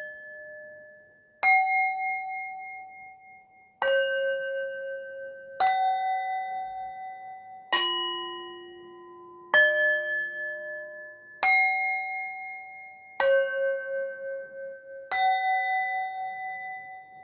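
Meditation music of struck bell tones: eight strikes about two seconds apart, each at a different pitch, each ringing and slowly fading before the next.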